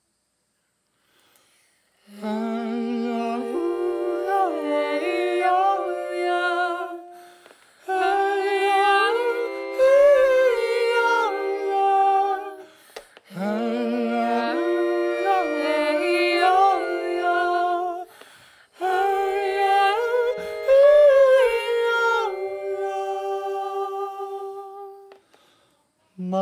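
Unaccompanied wordless vocal singing, hummed or sung on open vowels, in voices moving in harmony. It starts about two seconds in and goes in four slow phrases with short breaths between them.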